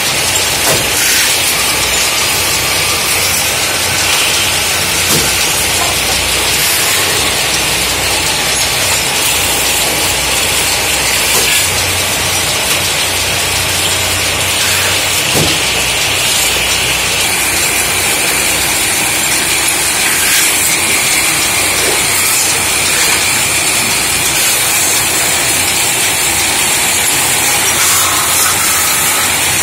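Belt-driven metal-spinning lathes running, with a steady, loud hiss of a hand tool scraping against a spinning aluminum pot blank over the low drone of the machines.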